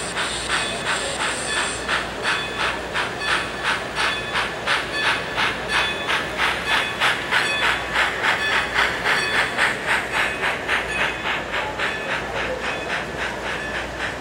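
Model steam locomotive's sound unit chuffing steadily at about two to three chuffs a second over a steady hiss as the train rolls past. A high hiss cuts off about two seconds in.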